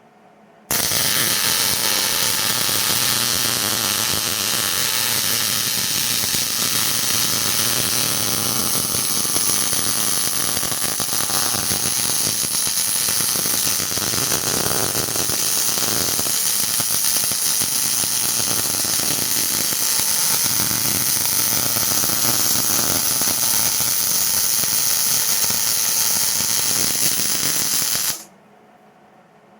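Welding arc running one continuous bead on a workpiece turning on a motorised welding positioner, a steady loud crackling hiss that starts and stops abruptly, about 27 seconds long. A brief second burst of arc comes just before the end.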